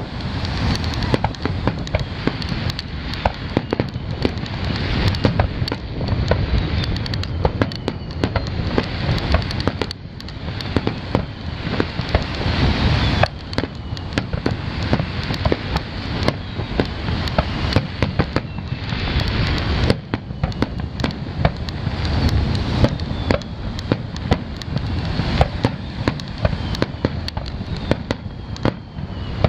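Aerial fireworks shells going off one after another in a continuous display: a dense run of sharp bangs and crackling over a low rumble.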